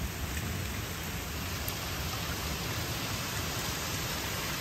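Steady rain falling on garden foliage, an even hiss with no break.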